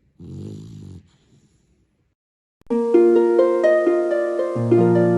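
A Labrador puppy's single snore, lasting under a second. About halfway through, louder plucked-string music like a harp or guitar begins, a run of ringing notes that overlap.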